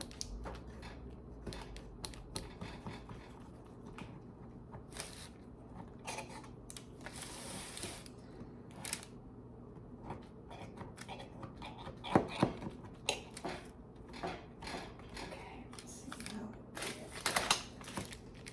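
Clicks, knocks and a short scrape of a springform cake pan being handled and released from around a cheesecake, with the loudest clanks about two-thirds of the way through and near the end.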